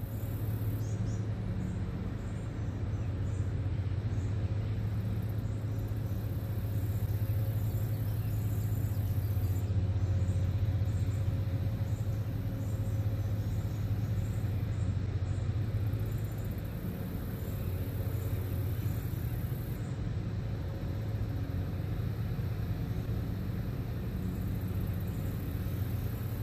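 Steady low rumble of a large towboat's diesel engines pushing a loaded barge tow upriver, heard across the water, with an even deep hum and no change in pitch.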